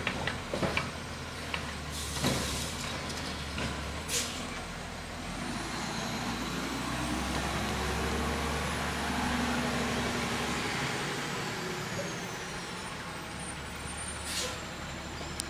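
Side-loading garbage truck's diesel engine running and pulling away, growing louder midway as it accelerates, with sharp air-brake hisses about two and four seconds in and again near the end. A few knocks in the first second.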